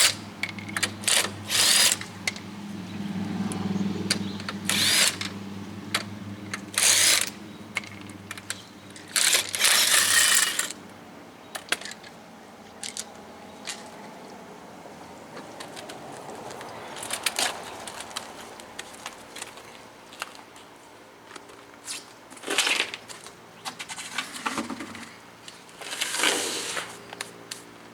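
A power tool run in short bursts of up to a second or so, about nine times, spinning the lug nuts off a wheel, with light metallic clicks between bursts.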